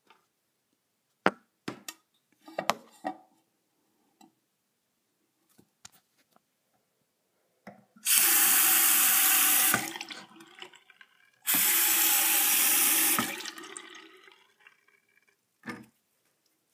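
Bathroom sink faucet turned on twice, water running into the basin for about two seconds each time, then shut off abruptly and trickling away. A few sharp clicks and knocks come first.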